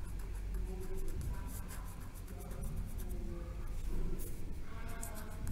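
Felt-tip pen scratching across lined paper in many short strokes as a word is written in joined handwriting.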